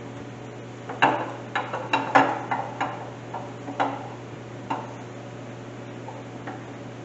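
Camshaft of a Pontiac 350 V8 being slid out of the engine block by hand on a cam tool: a run of metal clicks and knocks as the lobes and journals catch on the cam bearings, the tight fit through the bearings. The knocks bunch up between about one and five seconds in, a few faint ones after, over a steady low hum.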